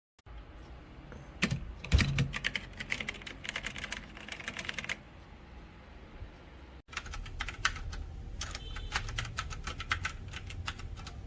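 Typing on an HP GK100 mechanical keyboard with brown switches: rapid runs of key clicks, with a lull and a brief dropout a little past halfway, over a low steady hum.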